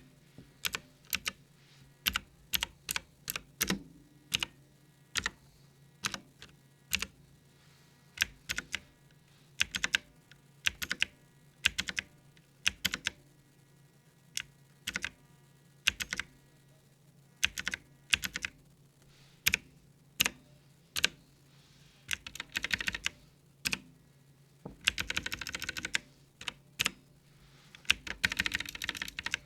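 Clicky mechanical keyboard switches on a budget keyboard with round typewriter-style keycaps, pressed one at a time about once a second, with short runs of rapid typing near the end. The single presses fit stepping through the keyboard's lighting presets with the function key. A faint steady low hum runs underneath.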